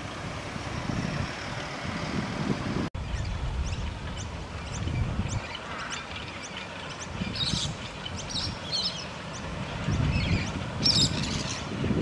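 Small birds chirping repeatedly, many short high calls, over an irregular low rumble of wind on the microphone.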